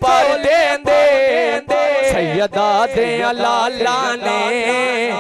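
A man sings a Punjabi naat unaccompanied, holding long drawn-out notes that waver up and down in pitch, with no clear words. About halfway through, a steady low held note joins under the voice.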